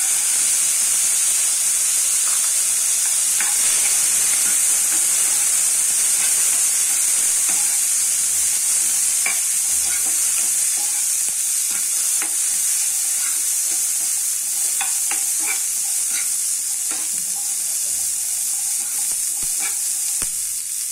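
Boiled chickpeas sizzling in hot oil in a nonstick pan, a steady high sizzle that jumps up as they go in, with scattered clicks and scrapes of the spatula as they are stirred.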